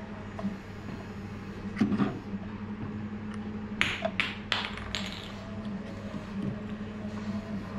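Clicks and knocks of a gear-driven prototype water valve being handled and turned over in the hand, with a cluster of sharp clicks about four seconds in, over a steady low hum.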